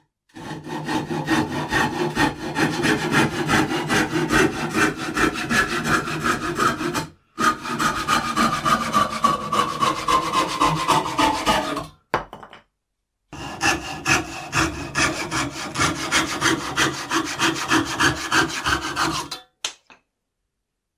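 Restored, freshly sharpened hand saw cutting through wood in quick, steady back-and-forth strokes, in three runs with short breaks between them. During the second run a ringing tone slides down in pitch.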